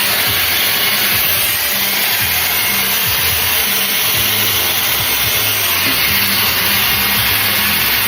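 Shark hair dryer-styler running, a loud, steady rush of blown air.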